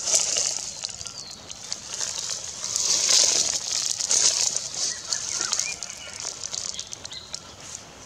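Outdoor background: a high hissing, crackling rustle that swells about three seconds in and fades toward the end, with a few faint, short bird calls.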